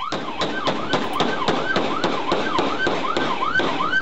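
Patrol car's siren yelping up and down, about three sweeps a second, under a rapid string of sharp gunshots, roughly four or five a second, as the suspect car flees.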